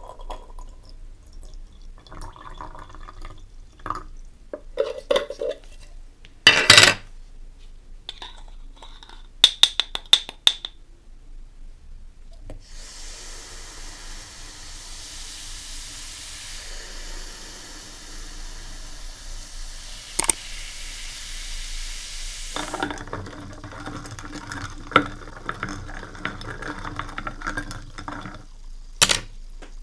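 Acetic acid poured into a small glass jar of rusty lighter parts, with sharp clinks against the glass. Then about ten seconds of steady fizzing hiss as the acid bubbles on the rust, followed by a stick stirring the liquid and tapping the jar, ending with one sharp click.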